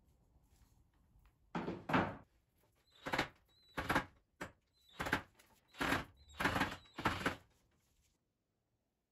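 About seven short, harsh bursts, roughly one a second: a cordless drill driving at a screw in a wooden loom frame in short goes. Its bit slips and grinds in the stripped screw head.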